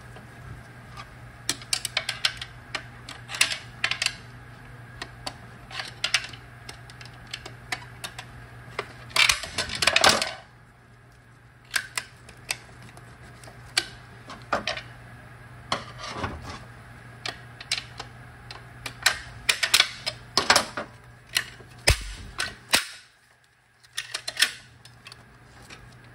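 Irregular metal clicks, clinks and scrapes of screwdrivers prying at the snap ring that retains the center support inside a Toyota AB60E automatic transmission case. About ten seconds in comes a loud burst of rapid scraping and clicking.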